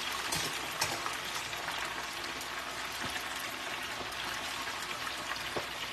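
Chicken wings deep-frying in a pot of hot oil: a steady sizzling hiss of bubbling oil with a few sharper crackles.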